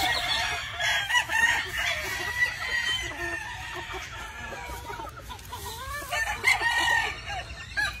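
A flock of gamefowl chickens and roosters calling over one another: many short clucks and squawks, with roosters crowing.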